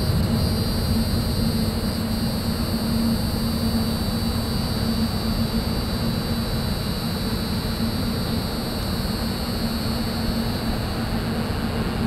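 Steady roar of highway traffic with a low steady hum in it, and a high, even buzz of insects calling over the top.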